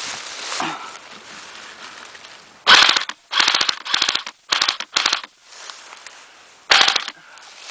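Airsoft gun firing six short bursts of rapid automatic fire, each a quick run of sharp clicks, starting about three seconds in.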